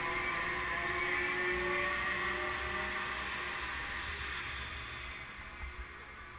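Chairlift terminal machinery running with a steady hum, fading as the skier glides away from it, with skis sliding on snow.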